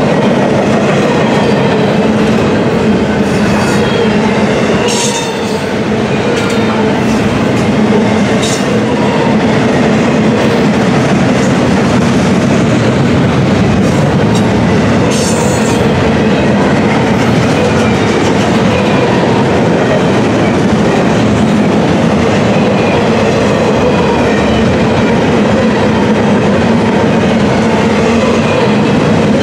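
Double-stack intermodal well cars rolling past close by: a steady, loud rumble of steel wheels on rail with clickety-clack over the rail joints. Three brief high-pitched screeches from the wheels stand out, the last about halfway through.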